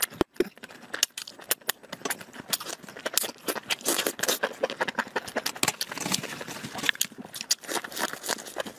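Close-miked wet eating sounds of a person slurping and chewing saucy enoki mushrooms: a dense, continuous run of quick smacks and slurps.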